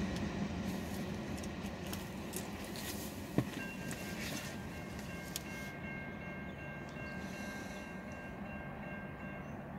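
Norfolk Southern freight train rumbling away into the distance, gently fading. A single sharp knock comes about a third of the way in, and right after it a faint steady high chord of three tones starts and holds for about six seconds, ending just before the close.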